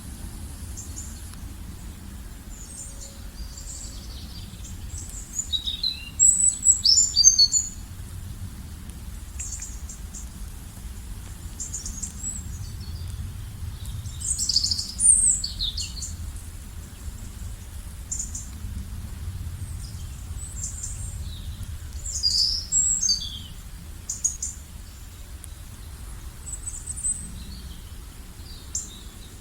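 Several birds chirping and singing in short, high calls and trills, busiest a few times through the stretch, over a low steady rumble.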